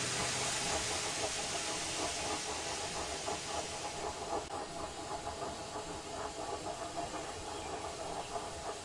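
Steam hissing out in a long, steady rush, like a steam locomotive blowing off.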